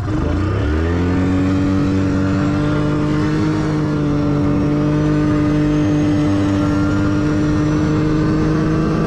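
Motor vehicle engine revving up over about the first second, then running steadily at a constant speed.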